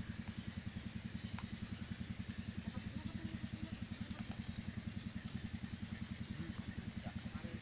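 An engine running steadily at idle: a rapid, even low throb.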